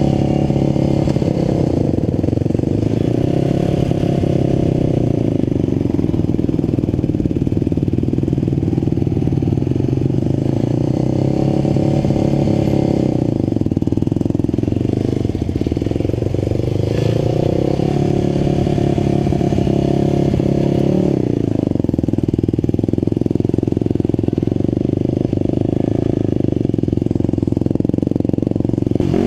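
Quad (ATV) engines running at low speed, the nearest one's pitch rising and falling several times as the throttle is opened and closed.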